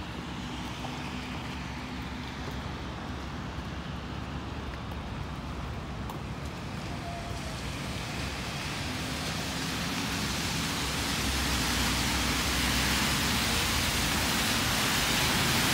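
City traffic on rain-wet streets: a steady hiss of tyres on wet pavement over a low engine hum, growing louder through the second half.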